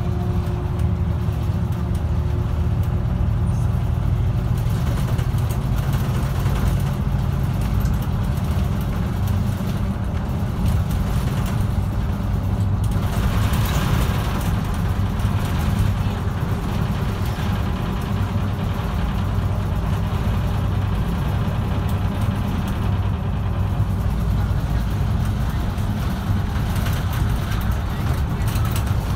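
Bus engine droning steadily with road noise, heard from inside the bus while it drives along. About 13 seconds in, a louder hiss rises briefly and fades.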